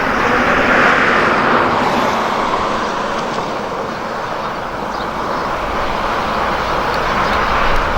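Road traffic going by: a steady rush of tyre and engine noise that swells about a second in, eases off in the middle and builds again near the end as vehicles pass.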